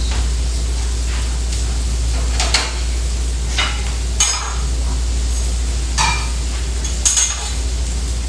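Food frying on a restaurant flat-top griddle over a steady low hum, with about five sharp metal clanks and scrapes of spatulas and pans on the grill line, each a second or so apart.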